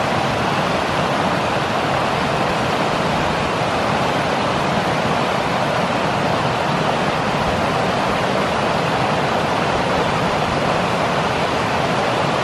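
Mountain creek water rushing over rocks and a small dam: a steady, even rush.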